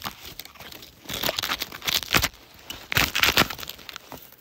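Rustling and crunching of a puffy synthetic jacket and handling noise close to the microphone as a person shifts and sits down, in two main crackly bursts about a second in and about three seconds in.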